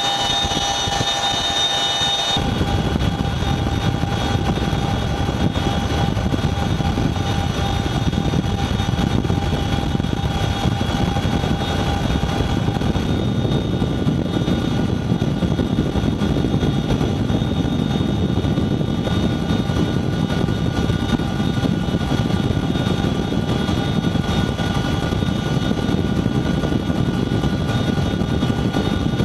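Boeing CH-47 Chinook tandem-rotor helicopter in flight, heard from aboard: steady rotor and turbine noise with several high, steady whining tones on top. The mix changes abruptly about two seconds in.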